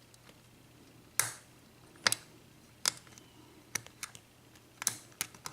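Lock pick working the pins of a Baldwin five-pin lock cylinder during single-pin picking: about seven sharp, irregularly spaced clicks, the loudest about a second in, as pins are lifted and set under tension.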